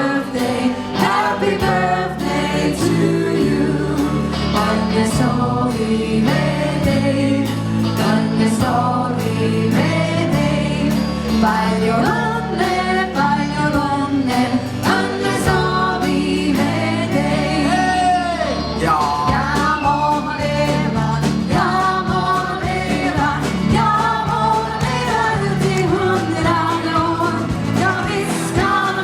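Singing over band accompaniment, with a steady beat from bass and drums.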